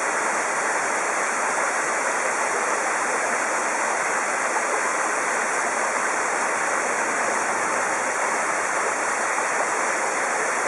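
Waterfall pouring with a steady, even rush of water: the falls of Tobushi Falls on the Panketobushi River.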